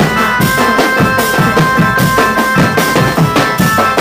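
Drum-led music: fast, steady drum strokes under a held high tone.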